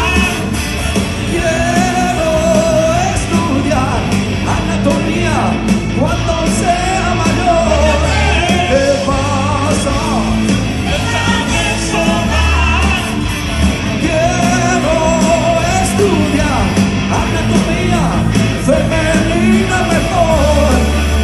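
Rock band playing live, a singer's voice over the full band with bass and drums, heard loud and steady from among the audience.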